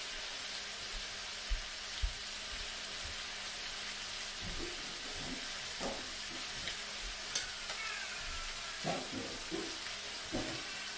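Ground-beef empanada filling with onions and peppers sizzling steadily in a frying pan on an electric stove, with a few faint knocks and a sharp click about seven seconds in.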